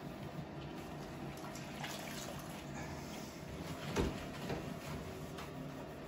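Rubber-gloved hand wiping and scrubbing a cloth over patterned floor tiles in a few short strokes, with one sharper knock about four seconds in. A steady low hum sits underneath.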